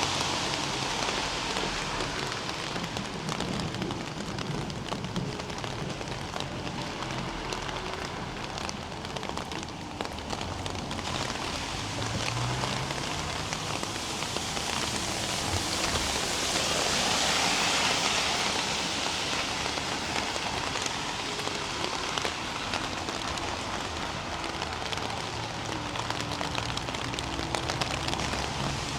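Steady rain falling and hissing on the ground, swelling louder for a few seconds around the middle.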